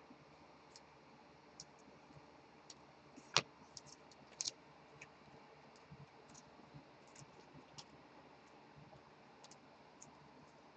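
Faint clicks and ticks of trading cards being handled and laid on a desk, with one sharper click about three and a half seconds in and a couple more a second later.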